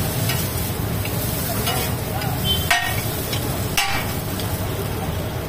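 Chowmein noodles frying and being stirred on a large flat tawa griddle, a steady sizzle and scrape, with two sharp clinks of a metal spatula striking the griddle about a second apart near the middle.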